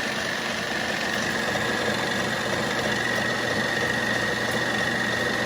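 1940s RCA 16mm film projector running on its motor with a replacement spring drive belt, set going in reverse. It is a steady mechanical running sound with a constant high-pitched whine.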